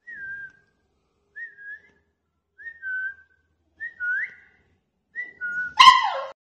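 Five short, high two-note whistles, each falling slightly in pitch, about a second and a bit apart, then one loud, short bark or yelp from a German Shepherd puppy near the end.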